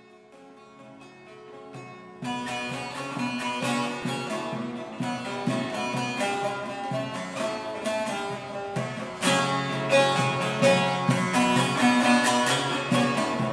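Two long-necked lutes, a large bağlama and a smaller bowl-backed saz, playing an instrumental piece with quick plucked notes. It fades in softly, the full playing starts about two seconds in, and it grows louder about nine seconds in.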